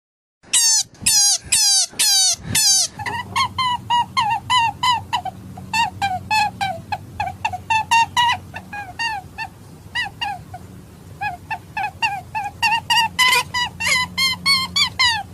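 Rabbit squeaking: five long, wavering squeals in the first three seconds, then a steady string of short squeaks, about three or four a second, each dipping in pitch.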